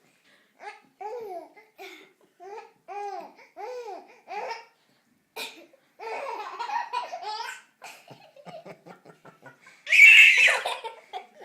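Young children laughing in a string of short rising-and-falling laughs, then a quick run of giggles and a loud, high squeal near the end.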